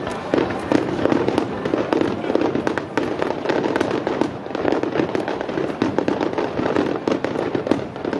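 Aerial fireworks in a rapid barrage, many shells launching and bursting in quick overlapping succession, a continuous run of sharp bangs with crackle.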